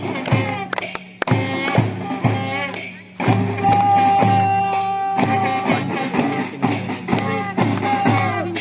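Music playing, its melody holding one long note for about two seconds in the middle.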